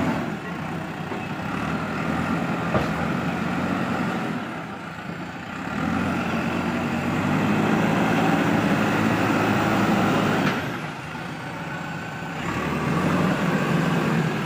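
JCB 3DX backhoe loader's four-cylinder diesel engine running under working load as the backhoe digs. The revs rise from about six seconds in, drop back about four seconds later, then climb again near the end. One sharp knock about three seconds in.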